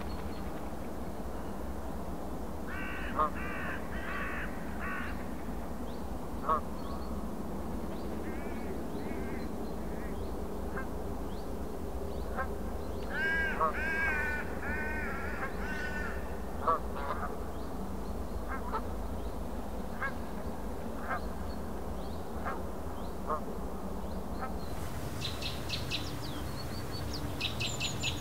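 Wetland bird ambience: scattered bird calls and sharp ticks over a steady low rumble, with a run of harsh, quacking calls about halfway through. Quick high chirps from a small bird come near the end.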